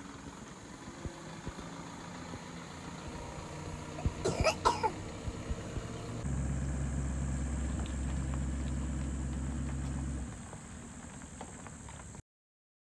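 Light truck engine running slowly as a steady low drone, louder and steadier for about four seconds from just after six seconds in, then sinking back. About four seconds in comes a short cough-like vocal sound, the loudest thing here. The sound cuts off near the end.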